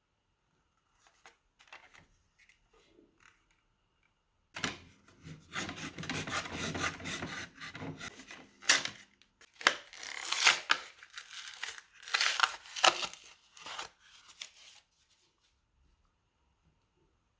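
Packaging of a Fiskars pruning saw being handled and opened by hand. A few faint clicks come first, then about ten seconds of loud rustling and scraping with several sharp cracks, which stops a couple of seconds before the end.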